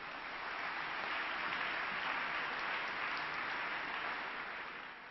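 Audience applauding, building briefly, holding steady, then fading out near the end.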